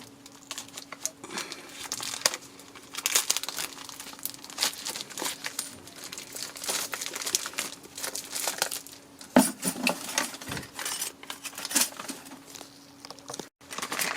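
Plastic packaging crinkling and rustling as new brake pads are unwrapped and handled, with a few sharper clicks about nine and a half seconds in.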